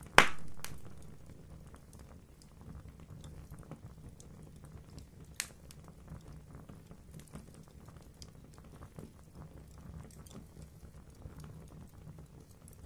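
Fire in a fireplace crackling, with many small ticks over a low steady rumble. A loud pop comes just after the start and dies away over about a second, and a second, sharper pop comes about five seconds in.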